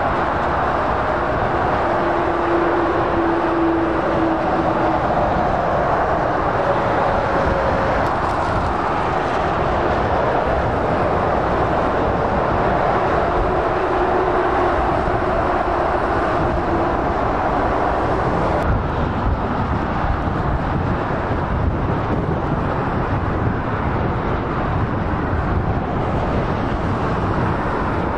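Steady motorway traffic: heavy lorries and cars passing at speed, tyre roar and diesel engines blended into a continuous rushing noise, with a few faint whining tones drifting by.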